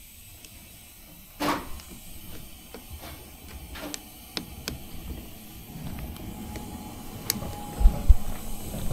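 Small metallic clicks and scrapes of a wire and clip being handled at a car battery terminal, with a louder scrape about one and a half seconds in. Low rumbling thumps come in near the end.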